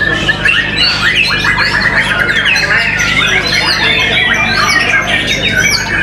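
White-rumped shamas singing, several birds' songs overlapping at once: a dense, loud, unbroken mix of quick whistles, trills, rapid repeated notes and rising and falling sweeps.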